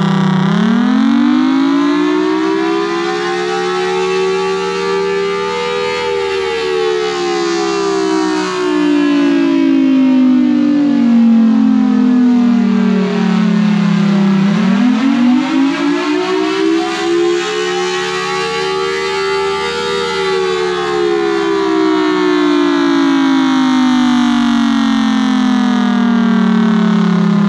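Federal Signal Thunderbolt 1003 outdoor warning siren sounding a wail. The pitch rises over about five seconds and then sinks slowly over about eight. This happens twice, and it starts rising again near the end.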